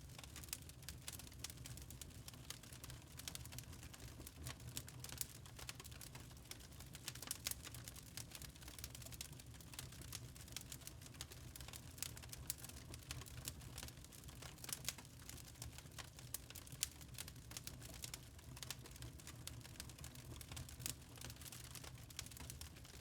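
Wood fire in a fireplace crackling, with irregular sharp pops and ticks over a steady low rumble.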